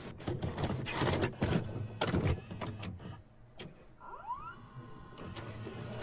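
Video cassette player mechanism: a quick run of clicks and clunks as the tape loads, then a rising whirr about four seconds in as playback starts.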